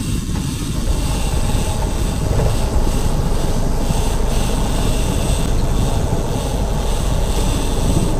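Motorboat engine running steadily under way, a dense low rumble.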